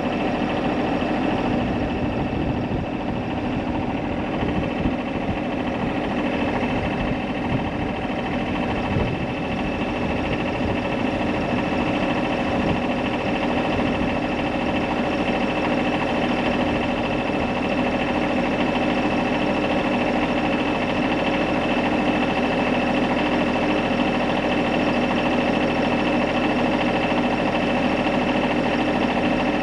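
An engine running steadily at an even speed, a constant hum that holds its pitch.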